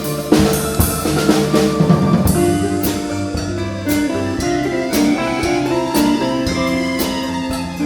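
Russian folk-instrument ensemble playing a lively piece live, with melody and chords over a steady drum beat.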